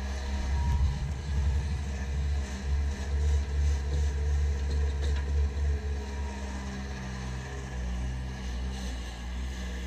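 Bobcat 763 skid-steer loader's diesel engine working under load as it lifts and tips its bucket, a low rumble that swells and wavers, then eases off over the last few seconds as the loader backs away.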